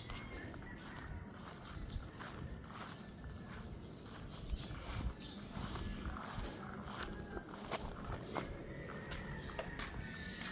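Farmyard animal sounds over a steady background, with scattered short clicks and knocks.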